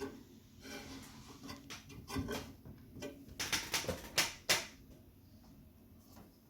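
Light clicks, knocks and rustles of hands handling the microwave's parts, irregular, with the loudest cluster of clicks about halfway through.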